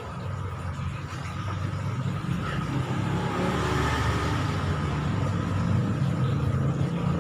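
Front-loading washing machine running, a low rumble that grows steadily louder as the drum speeds up.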